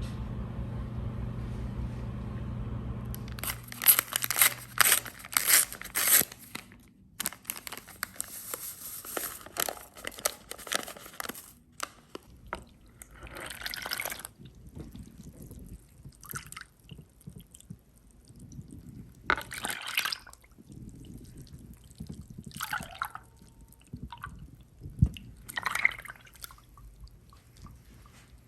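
A steady low hum that stops about three and a half seconds in, followed by intermittent crunching, clicking and liquid handling sounds.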